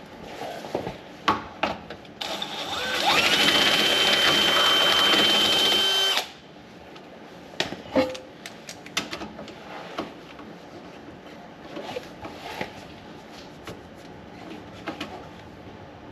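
A power drill spins up with a rising whine and runs steadily for about four seconds, amid scattered clicks and knocks of metal parts being handled.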